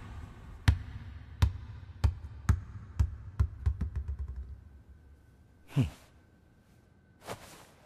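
Volleyball bouncing to rest, the knocks coming quicker and fainter until they die out. A short whoosh with a falling pitch follows about six seconds in.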